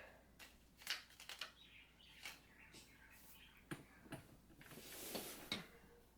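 Faint scattered knocks and clicks, with a short rushing swish about five seconds in, as an assembled gaming chair is handled and turned upright.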